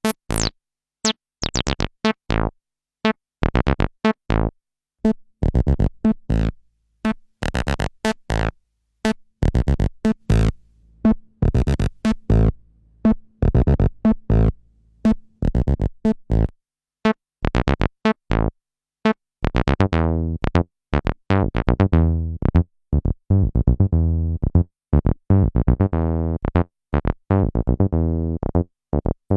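Behringer TD-3 analog bass synthesizer playing a sequenced acid bassline of short, clipped notes, each with a quick filter decay. About two-thirds of the way in, the pattern turns denser, with longer notes and heavier bass.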